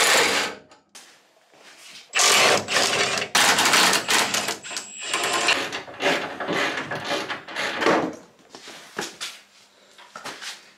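A power impact wrench rattling in a series of short bursts, undoing the bolts that hold a drift car's bolt-on tubular front frame.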